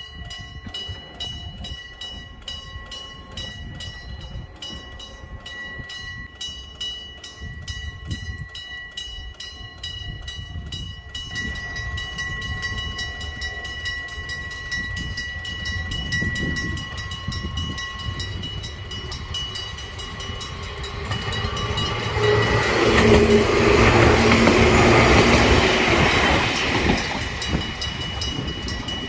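Electric-bell level crossing warning bell ringing continuously in rapid, evenly repeated strokes. From about 21 seconds in, an electric train passes over the crossing and is the loudest sound for several seconds, nearly drowning the bell.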